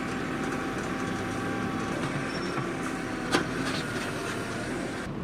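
Steady running of engines, as from vehicles or road-works machinery, with a few held whining tones and a single sharp click about three and a half seconds in.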